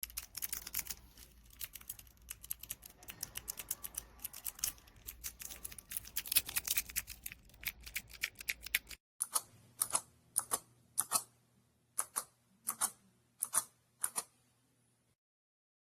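Clicky blue-switch mechanical keyboard: fast typing, a dense run of sharp clicks. After a sudden change about nine seconds in, single keys are pressed one at a time, about ten crisp clicks roughly half a second apart, over a faint steady hum.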